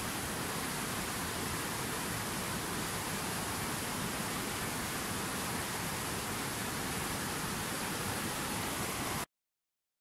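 Steady rushing of a fast whitewater river, an even roar of water that cuts off abruptly to silence near the end.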